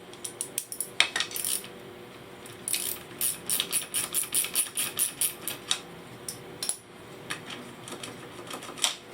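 Metal clicking and clinking of a socket wrench working the loosened 24 mm rear axle nut off a scooter's axle, in quick runs of sharp clicks about four a second.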